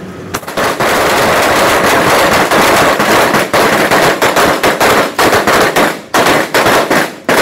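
Rapid gunfire from several 5.56 mm M4 carbines firing at once, the shots overlapping into a continuous crackle that starts abruptly just after the beginning and thins into separate shots near the end.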